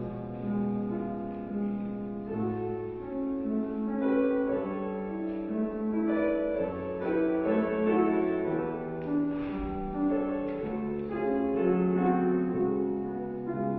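Piano playing slow classical accompaniment for a ballet class exercise, sustained melody notes over a steady bass line.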